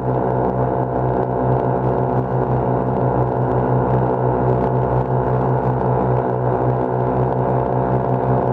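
Lazair ultralight's twin small two-stroke engines running with a steady drone.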